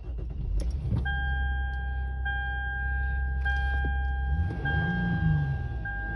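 Lexus IS engine idling through a newly fitted cold air intake, then revved once about four seconds in, the intake noise sounding a little bit aggressive. A repeating dashboard warning chime sounds over it about once a second from a second in.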